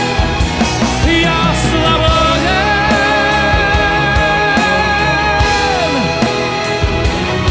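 Rock music, with long held notes that slide up or down at their ends over a steady bass.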